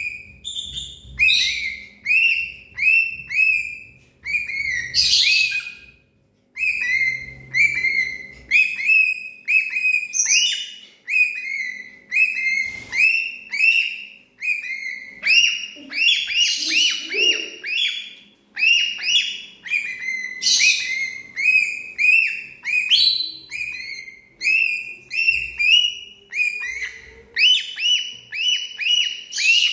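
A parrot calling over and over in short, sharp, shrill squawks, about two a second, with a few longer, harsher screeches mixed in.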